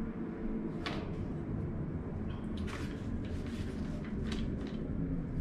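Handling noise from an AR-15 rifle being turned over in the hands: a few soft knocks and rustles, about a second in and again midway, over a steady low hum.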